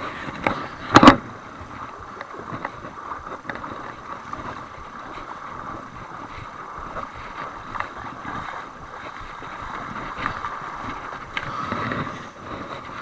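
Shallow water sloshing and splashing while a hooked wrasse is landed, with one loud sharp sound about a second in and scattered small clicks.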